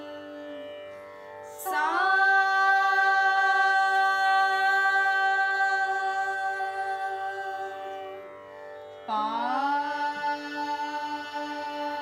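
A woman's voice sings two long held notes over a steady shruti drone, sliding up onto each note. The first note starts about two seconds in and is held for over six seconds. The second, lower note starts near the end.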